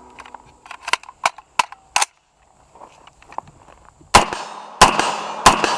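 Several sharp metallic clicks as the rifle is worked in the first two seconds, then three loud gunshots from a CMMG MK3 short-barrel .308 AR-10 pistol, about two-thirds of a second apart, each with a ringing echo.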